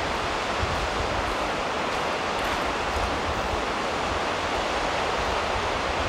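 Surf breaking on the beach as a steady rushing wash, with wind buffeting the microphone in uneven low rumbles.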